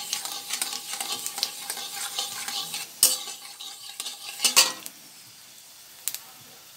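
Dried red chillies and nigella seeds sizzling and crackling in hot oil (the tempering step), while a metal spatula scrapes and stirs in an aluminium kadai. There are two sharper knocks of the spatula, about three and four and a half seconds in. The frying then settles to a fainter sizzle with a few ticks.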